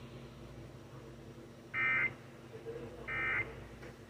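Two short electronic beeps from a weather alert radio, a little over a second apart, over a faint steady hum.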